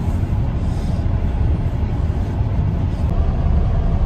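Steady low rumble of a moving vehicle, engine and road noise heard from inside the cabin.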